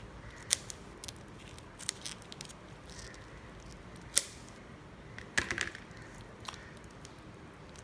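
Kitchen knife cutting along the underside of a raw prawn: a handful of sharp clicks and crackles as the blade goes through the shell, with a short cluster about five and a half seconds in.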